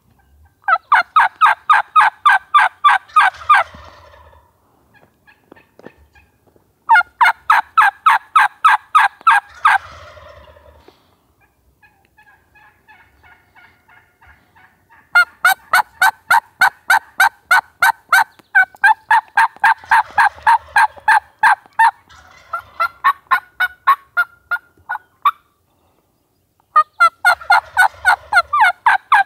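Turkey calling: long runs of fast, sharp, evenly spaced notes, about six a second. Three main runs come near the start, about a third of the way in, and through the middle, the last lasting several seconds.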